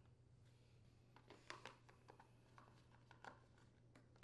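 Faint scattered clicks and rubbing of hands handling a plastic lawn mower wheel cover. Right at the end comes a single sharp snap as the cover clicks into place on the wheel.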